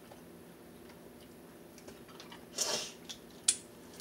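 Eating sounds: faint chewing, then a short noisy bite or smack about two and a half seconds in, followed by a few sharp clicks near the end.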